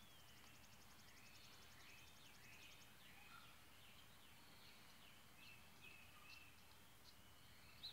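Faint birdsong: many short chirping, sliding notes throughout, with a fast, high, even trill for the first three seconds or so.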